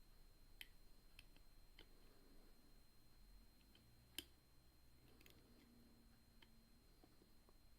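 Faint, scattered metallic clicks of a picking wire and tension tool working the levers of an ERA Big Six six-lever padlock, the sharpest about four seconds in.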